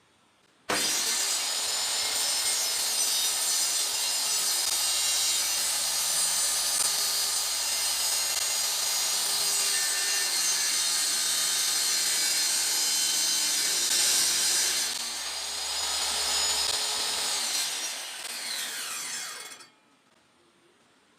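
Homemade table saw starting abruptly about a second in and cutting through wood with a loud, steady sawing noise. Near the end it is switched off and the blade winds down with a falling whine.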